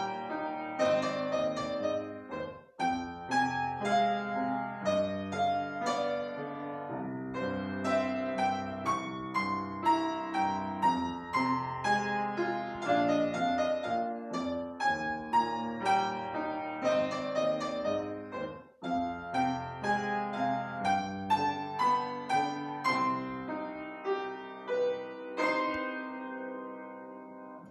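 Piano duet playing a flowing melody over chords, with two brief pauses. The closing notes die away near the end as the piece finishes.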